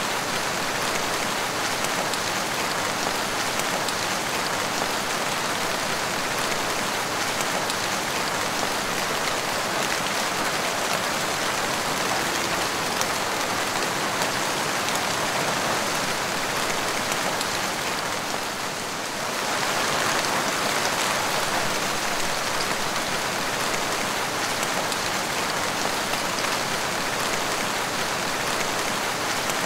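Steady rain falling and splashing on a wet tiled floor, a dense, even hiss of drops. It eases briefly about two-thirds of the way through, then comes back slightly heavier.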